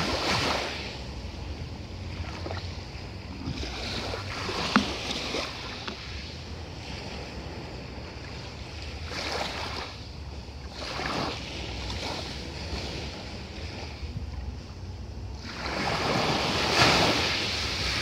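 Small waves breaking and washing up a fine pebble beach, each surge a swelling hiss that fades away, coming every four to six seconds, with the biggest near the end. A single sharp click a little under five seconds in, over a steady low rumble.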